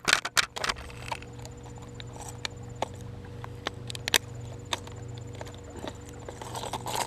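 Plastic lure packaging being handled and opened by hand. A quick cluster of crackles and clicks comes in the first second, then scattered single clicks and taps, over a steady low hum.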